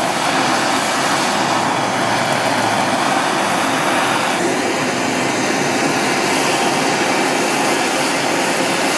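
Handheld Bernzomatic gas torch burning with a steady hiss as its flame is held against ice and frozen putty.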